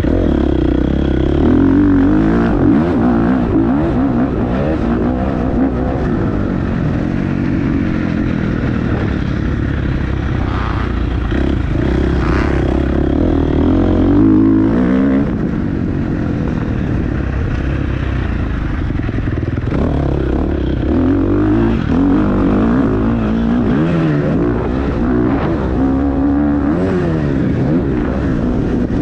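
A small engine running continuously at high speed, its pitch rising and falling again and again as the throttle changes.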